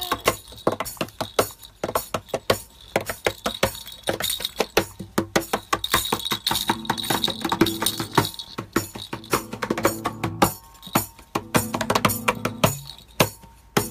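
Hands slapping and tapping the wooden top of an acoustic guitar in a fast, uneven patter of knocks, the strings now and then ringing briefly.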